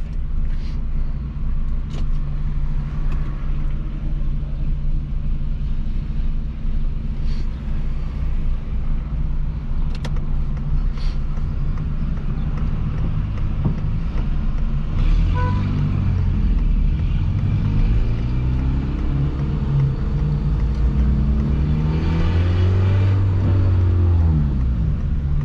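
Peugeot 206 1.4 four-cylinder engine with a straight-pipe exhaust, no muffler, running on ethanol while the car is driven. It drones steadily at first with a few sharp exhaust pops, then about halfway in revs up and down through the gears, its pitch rising and falling.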